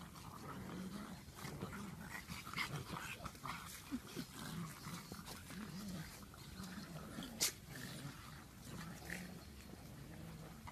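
Several pugs play-fighting, giving a run of low, wavering growls. A single sharp click about seven seconds in is the loudest moment.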